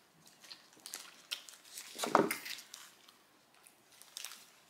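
Quiet eating sounds: faint rustling of paper burger wrappers and soft chewing clicks, with one brief, slightly louder squishy sound about two seconds in.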